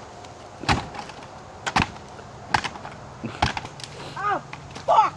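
Campfire of sticks and debris burning, with irregular sharp pops and cracks, and two short squeaks near the end.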